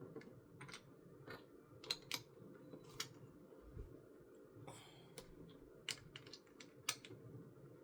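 Plastic LEGO pieces being handled and pressed together: a dozen or so sharp, irregular clicks and taps, with a brief rustle of pieces about five seconds in.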